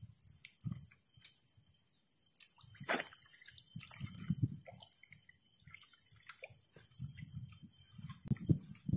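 Lake water sloshing and dripping close by, with scattered small knocks and clicks of handling.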